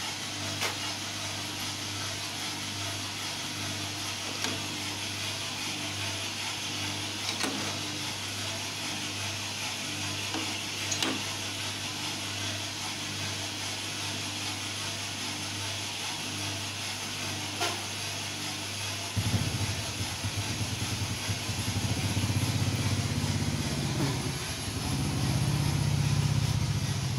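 Drum coffee roaster running: a steady hum from its motor and fan under an even hiss, with an occasional sharp click. About two-thirds of the way through, a louder low rumble joins in.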